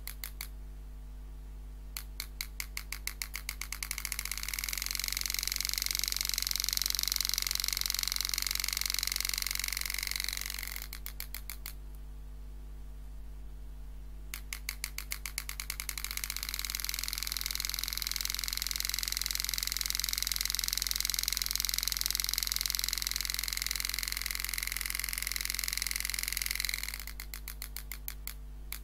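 Super EZ graver handpiece driving a 98° carbide graver into 304 stainless steel: the strikes start as rapid clicking, speed up into a steady high buzz held for several seconds, then slow back to clicks. This happens twice, with a third run of clicks near the end, over a steady low hum.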